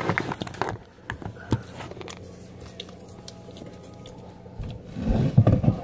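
Handling noise from a phone being moved and set down on a kitchen counter. There are a few sharp knocks in the first second, a quiet stretch with a low steady hum, then a cluster of dull rubbing thumps near the end.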